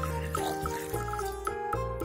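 Background music of held notes over a bass line, with faint splashing of water in a tub.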